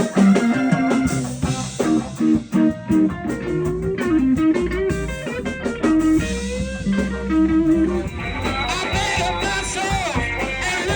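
Live band playing loud, guitar-led rock with bass and drum hits; sliding, bending notes come in about two-thirds of the way through.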